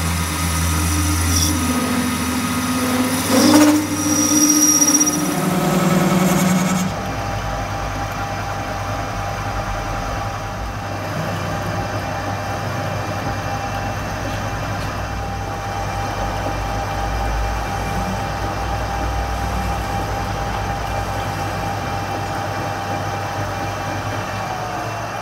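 Metal lathe running as its tool bit turns a steel pinion blank: a steady machine hum from the motor and spindle, with a brief louder sound about three and a half seconds in. The hum changes to an evener, steadier tone about seven seconds in.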